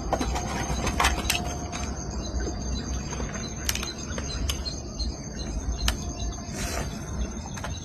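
Outdoor nature ambience: a steady high-pitched chirring under a low rumble, with a few sharp clicks scattered through it.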